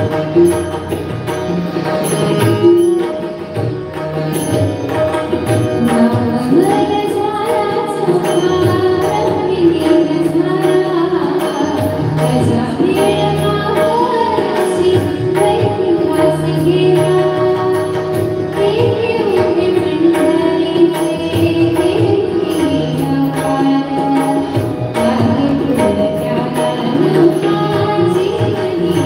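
A Marathi abhang (devotional song) sung with a wavering, ornamented melody over a steady held drone and rhythmic percussion.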